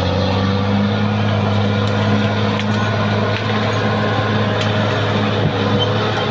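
Caterpillar D6R XL crawler bulldozer's diesel engine running, a steady deep drone that holds level throughout, with a few faint clicks.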